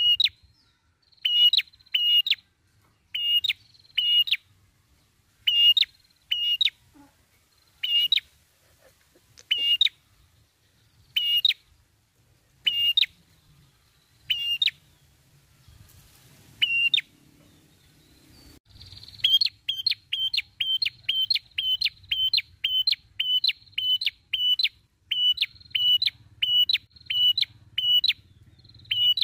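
Caged prenjak kepala merah, a red-headed tailorbird, calling in loud, sharp, high chirps. At first they come singly or in pairs every second or two; from about two-thirds of the way through they run together fast, nearly three notes a second.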